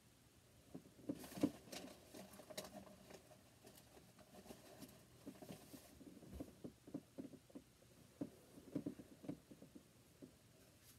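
Faint rustling and scattered soft bumps of a person shifting and crawling about on a bed, the blankets and clothing moving.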